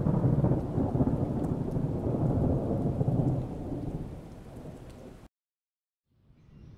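Thunderstorm: rumbling thunder over rain, fading over about five seconds, then cutting out abruptly and coming back faintly just before the end.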